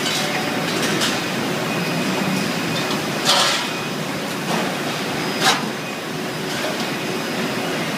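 Steady factory-floor machinery noise, with two short louder bursts of clatter or hiss about three and five and a half seconds in.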